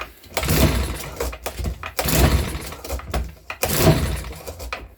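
Makita BHX2500 four-stroke leaf blower being pull-started from cold with no throttle: three rope pulls of about a second each crank the engine, but it does not catch. The owner suspects a fuel problem.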